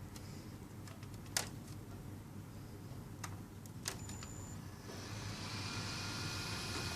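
Desktop PC powering on: a few sharp clicks over the first four seconds over a steady low hum, then fan noise starts to rise about five seconds in and settles into a louder steady hiss.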